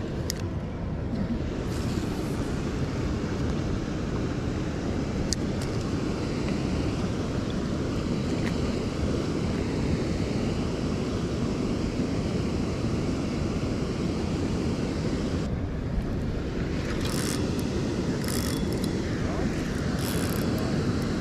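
Steady wind rumbling on the microphone, with a few faint clicks near the end.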